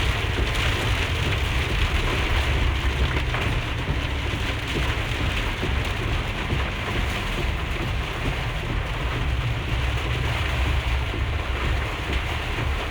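Heavy rain drumming on a moving RAM Promaster van as a steady hiss, over a constant low rumble of tyres on the wet road and the engine.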